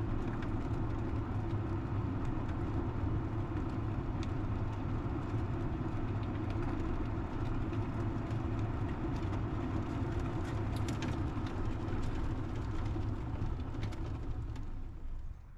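48-volt electric Club Car DS golf cart driving on pavement at about 10 mph: a steady low rumble of tyres and drivetrain with a few light rattles, dropping away abruptly just before the end.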